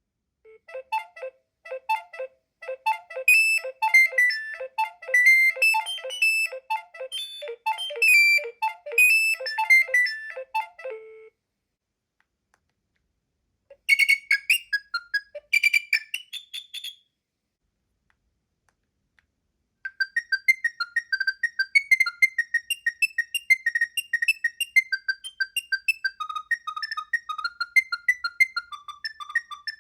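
Nokia 7250i's preloaded polyphonic ringtones played one after another. First comes a tune of quick, evenly spaced notes over a repeating lower part, lasting about eleven seconds. After a pause there is a short jingle of about three seconds, and about twenty seconds in a brighter tune of rapid high notes begins.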